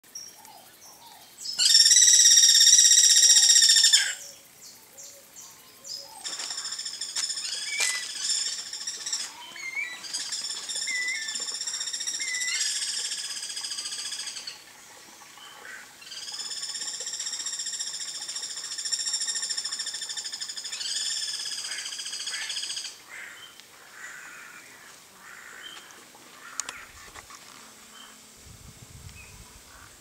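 Guira cuckoos calling: a series of long, harsh, buzzing calls, each two to five seconds long with abrupt starts and stops, the first the loudest. A few short chirps come between them, and the calls die away about three-quarters of the way through.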